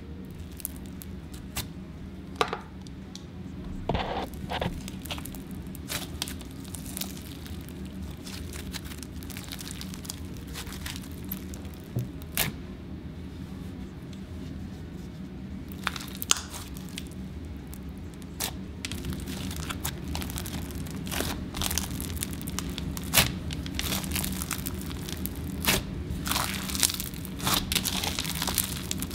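Hands squishing and stretching crunchy slime studded with bingsu beads, giving irregular crackles, pops and crunches that grow busier and louder near the end.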